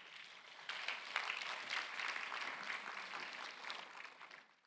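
Audience of many people applauding, building about a second in and fading out near the end.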